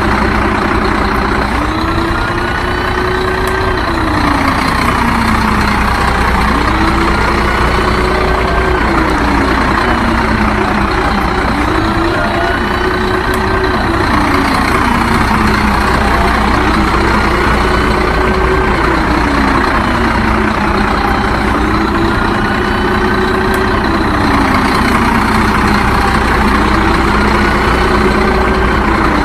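Truck engine running steadily, its pitch rising, holding and falling back about every five seconds, over and over.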